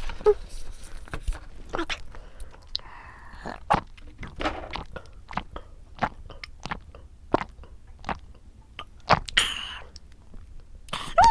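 Close-miked eating of cup ramen noodles: wet clicks and smacks of chewing, then sips of water from a glass. Among them are dull thuds of a cat climbing a cat tower.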